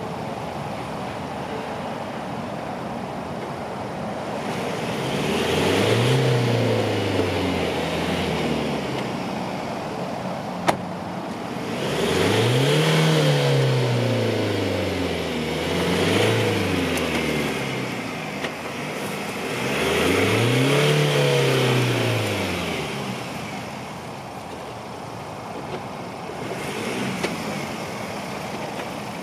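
A stuck Ford Ranger pickup's engine revved up and back down four times, its wheels spinning in mud, with a steadier engine sound between the revs. A single sharp click about halfway through.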